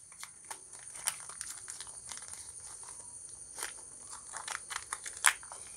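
Clear plastic wrapping crinkling as new crankshaft main bearing shells are worked free by hand, with scattered small clicks and one sharper click about five seconds in.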